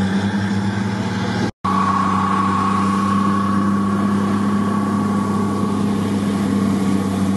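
Heavy military diesel engines running steadily, a loud even drone with a fainter higher whine and no change in pitch. The sound drops out for an instant about a second and a half in.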